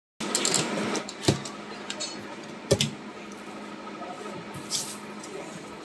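Handling noise: irregular rustling and small clicks, with two sharp knocks, one about a second in and another near the middle.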